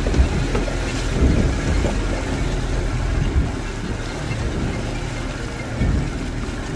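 Outboard motor running with the boat under way: a steady low engine drone under the rush of the wake.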